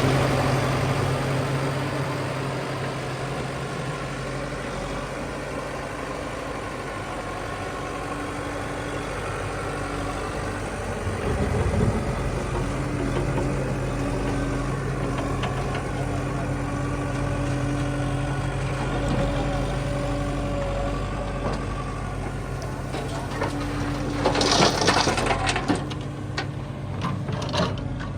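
Diesel engine of heavy earth-moving machinery running steadily. There is a short clatter of knocks about twelve seconds in, and a louder burst of clattering impacts near the end.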